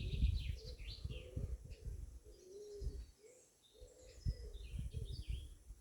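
Several birds chirping and calling in short, overlapping phrases, over a gusty low rumble of wind on the microphone.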